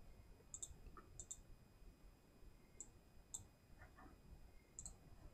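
Faint computer mouse clicks, about half a dozen short sharp ticks at irregular intervals, some in quick pairs.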